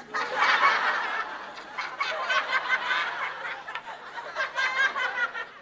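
Studio audience laughing, a game-show laugh-track effect: many voices laughing at once, starting suddenly and dying down near the end.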